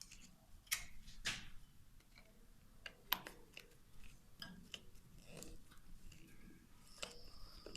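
Faint, scattered clicks and light knocks, with a brief high, thin tone near the end.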